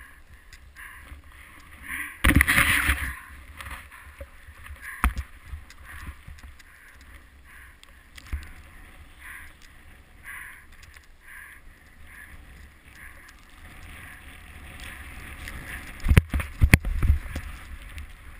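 Skis swishing through powder snow in a series of turns, with a loud rush of snow about two seconds in and a cluster of sharp knocks near the end.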